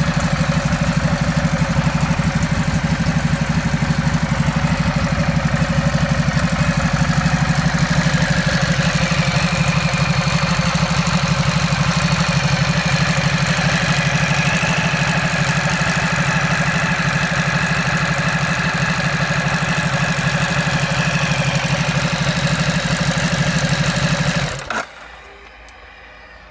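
Ducati Multistrada 1200's L-twin engine idling steadily with a metallic rattle that the owner hears from the lower right side of the engine. It is switched off near the end and stops abruptly.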